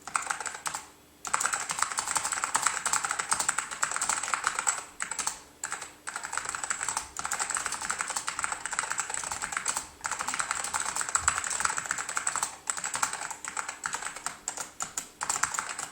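Fast typing on an Apple M0116 keyboard's Alps mechanical key switches: dense runs of rapid key clicks and clacks with a few brief pauses, from a keyboard freshly cleaned and with its keycaps reinstalled.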